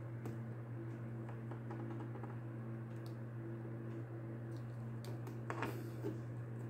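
Small plastic clicks and taps as a jointed action figure is handled and posed, with a brief louder scrape about five and a half seconds in. A steady low hum runs underneath.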